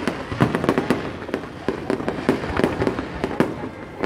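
Aerial fireworks going off in a rapid, irregular barrage of sharp bangs and cracks over a continuous rumble of bursts.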